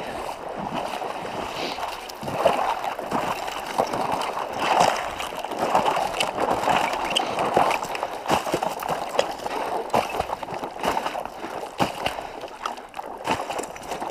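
Shallow water sloshing and splashing in an uneven run of strokes as a person wades through it.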